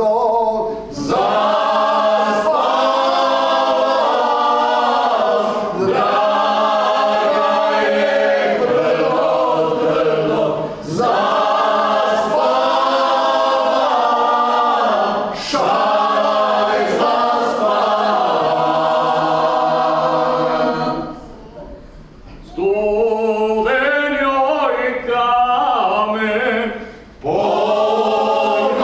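Small folk vocal group singing a cappella in the traditional Croatian style, several voices together in long held phrases. The singing breaks for a short pause about three-quarters of the way through and briefly again near the end.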